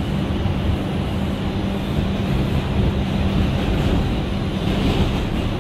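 New York City subway train heard from inside the car while running through the tunnel: a steady rumble of wheels on rail with a constant low hum under it.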